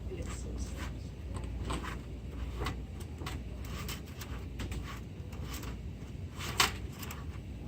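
Light clicks and rustles of hands working the 3D printer and its filament, with one sharper click about six and a half seconds in, over a steady low hum.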